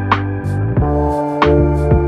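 Background music with sustained keyboard-like chords over a steady beat of drum hits and a hi-hat-like tick.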